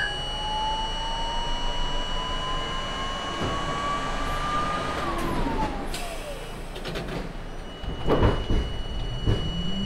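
R32 subway train running on the rails, its motor whine climbing slowly in pitch, then falling away about halfway through. Steady rumble of wheels on track underneath, with a louder stretch of rattling and knocks about eight seconds in.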